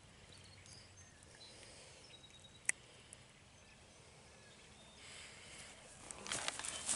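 Quiet outdoor background at a pond, with one sharp click about two and a half seconds in and rustling and small clicks of handling building near the end.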